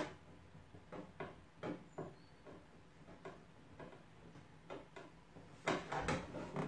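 Light, irregular clicks and taps of a paintless dent repair rod pushing at a hail dent from under a car hood. A sharp click comes at the start, and a louder flurry of knocks comes near the end.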